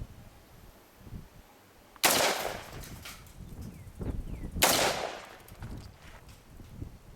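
Two single shots from a Colt AR-15 A2 rifle, about two and a half seconds apart, each with a short fading tail.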